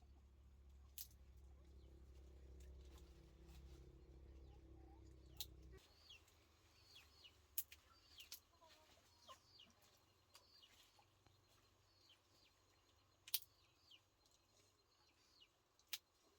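Faint chickens clucking and peeping, short falling calls about once a second, with a few sharp clicks. A low steady hum cuts off about six seconds in.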